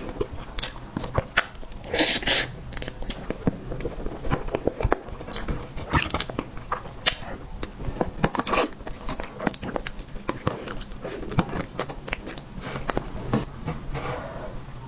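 Close-miked eating sounds: a person biting and chewing dessert, with many sharp mouth clicks and smacks, and a short rustle about two seconds in.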